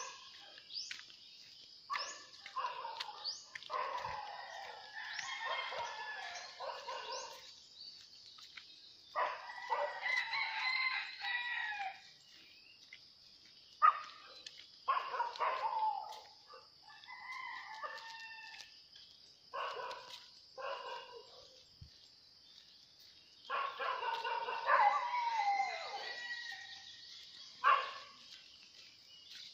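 Roosters crowing again and again, each crow lasting a second or two, over a steady high-pitched hiss.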